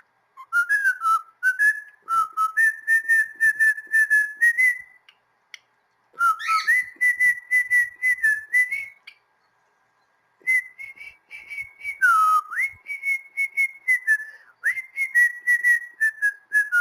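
Cockatiel whistling a song in three phrases of quick, repeated clear notes with small pitch slides, with short pauses between the phrases.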